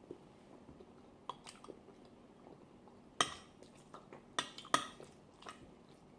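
Cutlery clinking against a plate while eating: a few separate sharp clicks, the loudest about three seconds in and two more a second or so later.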